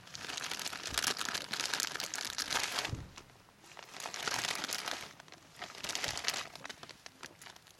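Plastic Ziploc zip-top bag crinkling as hands take garlic and ginger out and fold the bag, in three bouts of rustling with short pauses between.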